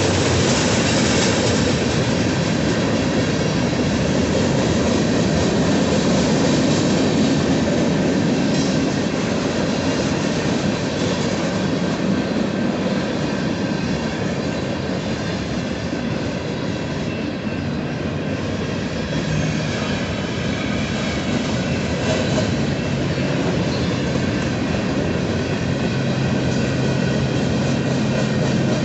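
Freight train cars rolling past, steel wheels running on the rails with a steady noise that eases slightly midway.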